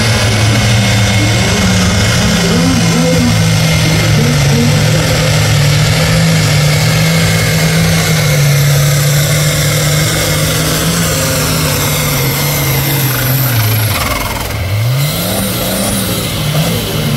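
International Harvester pulling tractor's diesel engine running hard at full load, holding a steady pitch as it pulls down the track. Near the end the note drops away, then rises in one quick rev.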